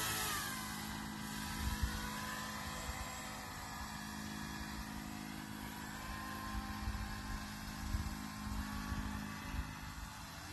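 Radio-controlled paramotor's motor and propeller droning in flight, its pitch dropping in the first second and then wavering slightly as it flies, with wind buffeting the microphone in low rumbles.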